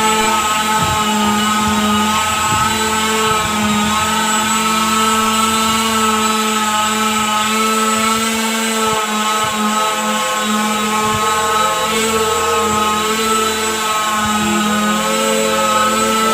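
A motor running steadily, its several tones wavering slightly in pitch.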